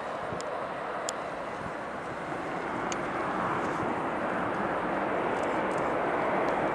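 Boeing C-17 Globemaster III's four Pratt & Whitney F117 turbofan engines running as the jet taxis: a steady jet rush that grows a little louder in the second half.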